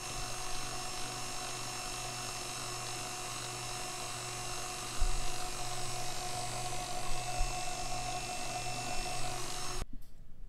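KitchenAid stand mixer motor running steadily, driving its metal grinder attachment as it pushes meat through the stuffing tube into a natural hog casing. The motor's even whine cuts off suddenly near the end.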